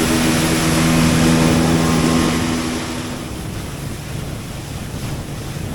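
Motorboat engine running with a steady hum, mixed with wind and water noise; the engine tone fades away about three seconds in, leaving wind buffeting the microphone.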